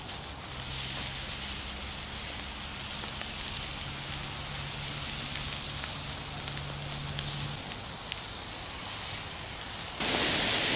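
Pork sausages in natural casing sizzling on a grill grate over a wood fire: a steady hiss, with a faint low hum underneath for most of it. The sound gets suddenly louder near the end.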